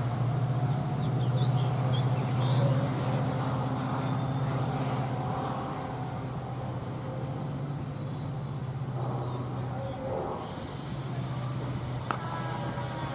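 A steady low engine hum, fading somewhat partway through, with a single sharp click near the end followed by a pitched drone that slides slowly downward.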